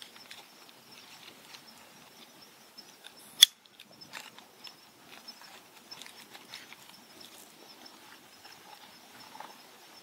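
Quiet outdoor ambience with a faint, steady high-pitched tone and scattered light ticks, broken by one sharp, loud click about a third of the way in that cuts off abruptly.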